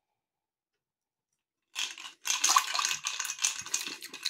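Ice cubes clinking and rattling against the sides of a textured glass tumbler as it is swirled by hand, a rapid run of clinks starting a little under halfway in.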